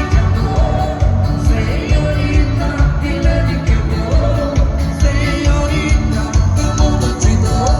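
Live dance band playing upbeat music with a steady, driving beat and a melody over it.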